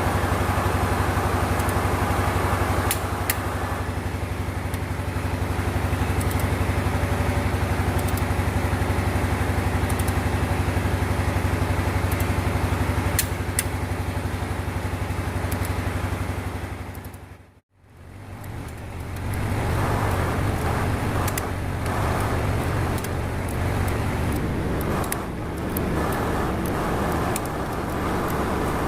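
A motor running at a steady speed, a low hum with a few sharp clicks over it. Around two-thirds of the way through it fades briefly to near silence, then comes back as a rougher, more uneven mechanical noise.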